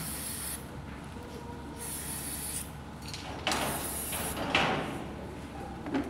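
Cloth rubbing over a steel rail's thermite weld, wiping off red penetrant dye during a crack check: a few scuffing strokes, the clearest about three and a half and four and a half seconds in.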